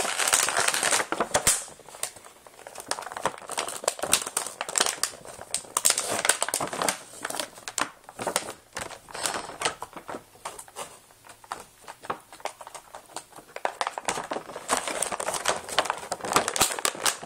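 Packaging crinkling and rustling with many irregular clicks and taps as action figures are pulled out of their box set, busiest in the first second or so and again near the end.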